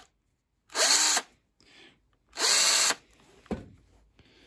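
Power drill run in two short bursts, about a second and a half apart, the motor speeding up and winding down each time, spinning an old grimy screw wrapped in a rag to clean it.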